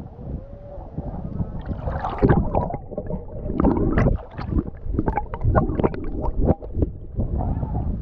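Sea water splashing and sloshing in many short, irregular strokes, over a low rumble of wind on the microphone.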